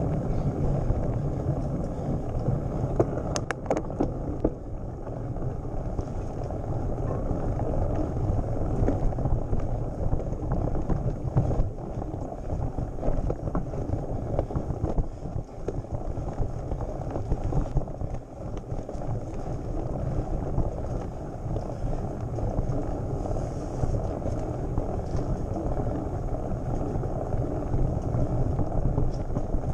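A mountain bike riding over a rough dirt trail, heard close to the handlebars: a steady rumble of the knobby tyres on dirt and stones, with the bike rattling and knocking over bumps, including a few sharp clicks about three seconds in.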